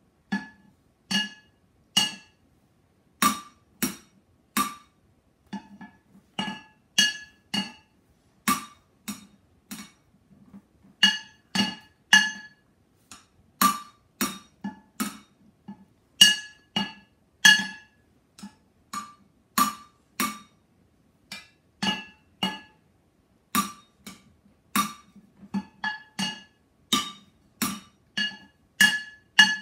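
Drumsticks beating on two upturned cooking pots used as drums, playing an uneven rhythmic pattern of single hits and quick flurries, each strike ringing briefly with a metallic tone.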